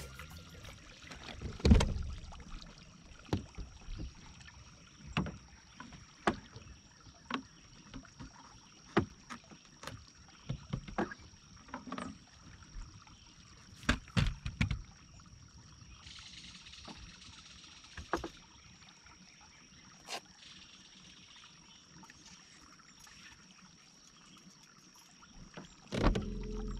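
Scattered knocks and light water splashes from a small fishing boat and tackle, with the loudest knocks about two seconds in and near the end, over a faint steady high-pitched tone.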